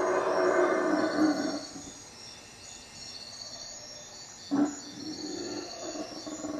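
Howler monkeys roaring, the loud chorus tailing off in the first second and a half and swelling again near the end. A single brief loud sound comes about four and a half seconds in. Insects chirp in a steady pulse throughout.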